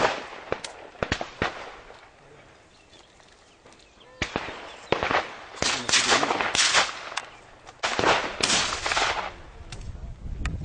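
A run of shotgun shots at clay targets, some sharp and close together, others with a longer echoing tail. There are a few shots in the first second and a denser string from about four seconds in, after a quieter gap.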